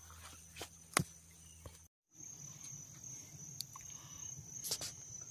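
Insects trilling in one steady high-pitched tone, broken by a short dropout about two seconds in. A sharp click about a second in, and a few fainter clicks.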